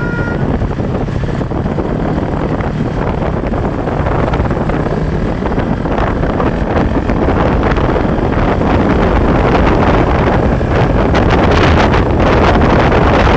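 A large bus passing close on the road: a loud rush of engine and tyre noise with wind buffeting the microphone, growing louder toward the end. At the very start the last note of its musical telolet horn cuts off.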